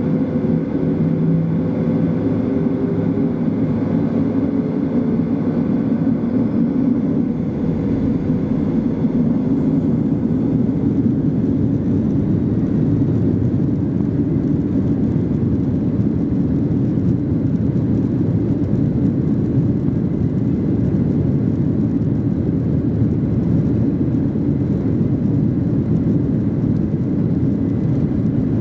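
Boeing 737-800's CFM56-7B jet engines heard from inside the cabin: a loud, steady rumble and rush of engine and airflow noise. A few steady engine tones fade out within the first few seconds.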